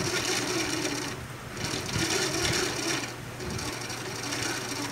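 Hand-cranked coil winding machine with a geared turns counter being turned steadily, a mechanical whirr that swells and fades every second or two as magnet wire is wound onto a transformer bobbin.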